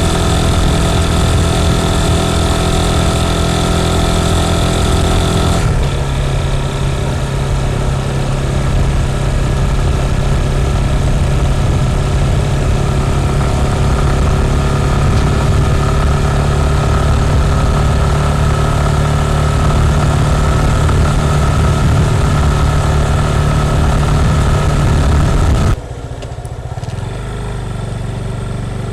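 Motorcycle engine running at a steady speed while riding, with wind noise. The sound changes abruptly about six seconds in, and drops in level near the end.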